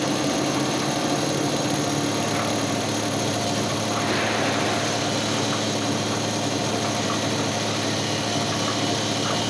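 CNC milling machine running steadily with a constant hum, with a brief hiss about four seconds in and a few faint ticks.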